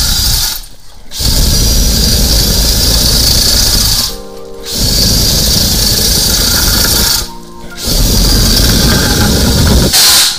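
Loud, steady noise of a drain-cleaning machine working a clogged urinal drain through a red hose. It drops away briefly three times, about three seconds apart.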